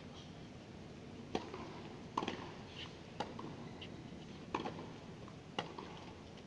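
Tennis rally: five sharp pops of the ball off the rackets and the court, roughly a second apart, over a faint steady background hum.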